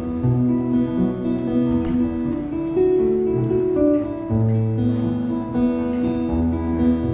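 Acoustic guitar strummed, its chords ringing, with the chord changing every second or two.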